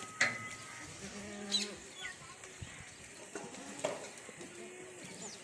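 Goats bleating several times, in short calls of bending pitch, with a few sharp knocks between them.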